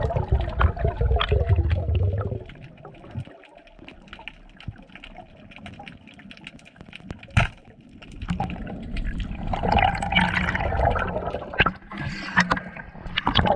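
Water sloshing and bubbling heard through an underwater camera, louder at the start and again over the last five seconds, with scattered ticks and one sharp click about seven seconds in.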